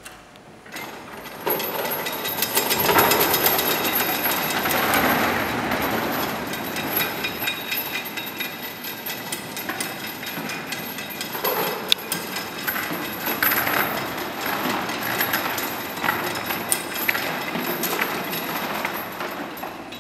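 Heavy steel chains rattling and clanking as machine-driven chains haul a fibreglass puppet of linked parts up off the floor and swing it. It gets loud about a second and a half in and stays a dense clatter, with one sharp clank about twelve seconds in.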